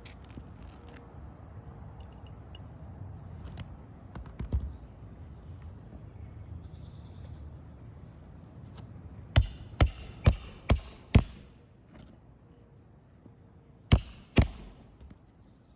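Hammer striking roofing nails into asphalt shingles: five sharp hits about half a second apart, then two more a few seconds later. Before the hammering there is low rumbling and small handling clicks.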